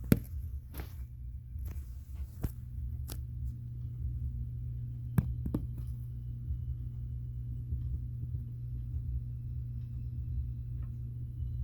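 Steady low humming noise of the kind that keeps an apartment resident awake at night, with a few sharp knocks or creaks in the first half.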